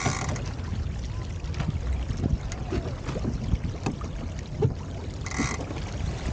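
A 29er skiff sailing under spinnaker: wind rumbling on the microphone and water rushing along the hull, with scattered light knocks and a brief hiss of spray a little past five seconds in.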